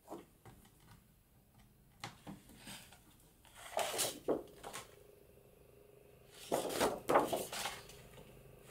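Sheets of patterned paper rustling as they are handled and turned over, in several short bursts of a second or so each.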